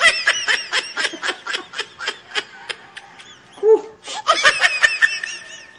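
A man laughing in a rapid string of short bursts. The laughter breaks off a little past the middle, then starts again.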